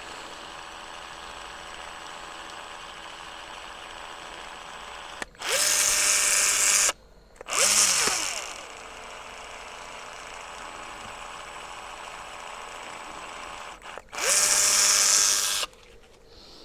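A power drill's motor run in three short bursts, each spinning up quickly to a steady pitch and held about a second and a half; after the second it winds down with a falling pitch. A steady, quieter hum fills the gaps between.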